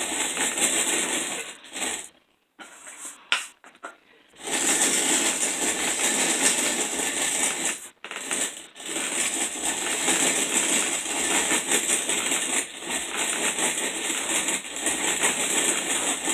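Hand-cranked manual grain mill grinding wheat berries into flour: a steady, gritty crunching and rattling of grain being crushed between the burrs. It stops for about two seconds near the start with a few clicks, then runs on with two brief breaks about halfway.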